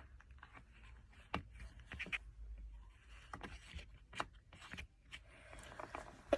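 A person holding back sneezes after snorting sneezing powder: several short, muffled puffs of breath and small clicks, with no full sneeze let out.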